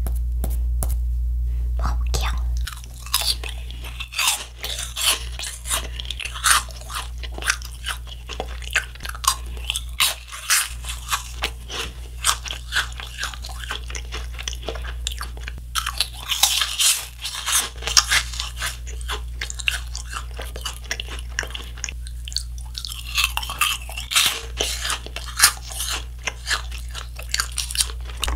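Close-up crunching and chewing of crisp green meringue cookies: many short, crisp crunches, densest about halfway through and again near the end.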